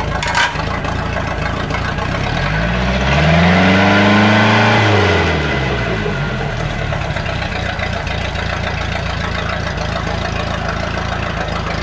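MerCruiser 3.0 four-cylinder sterndrive engine running on test after a new drive coupler was fitted. It idles, is revved up once about two and a half seconds in, and falls back to idle about three seconds later. The owner says the engine is not running correctly.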